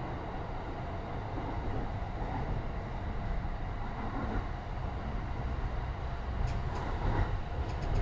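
Interior running noise of a JR East E235 series 1000 electric train, heard from a Green Car seat: a steady low rumble of wheels on rail, with a run of quick clicks near the end.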